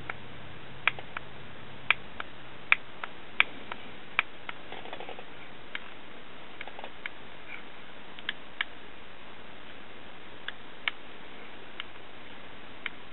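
Sharp clicks at uneven intervals, about twenty in all: the plastic buttons of the toy moon's infrared remote control being pressed repeatedly. A faint low hum runs under them for the first few seconds.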